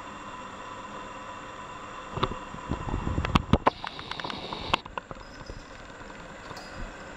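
A cat runs across a hard marble floor: for about two and a half seconds, starting about two seconds in, there is a quick run of knocks, ticks and soft thumps, then a few fainter ticks. A steady hum runs underneath.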